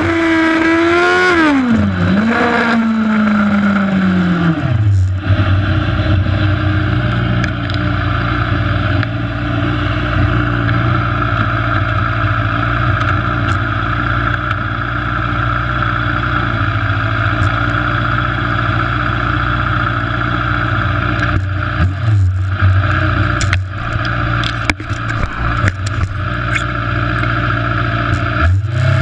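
Motorcycle engine slowing, its pitch falling over the first few seconds, then running at low, steady revs with wind and road noise. A few clicks and knocks come near the end.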